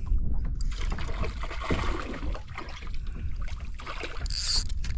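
Wind rumbling on the microphone, with water splashing and sloshing as a small hooked bream is fought beside a kayak. A short high hiss comes about four and a half seconds in.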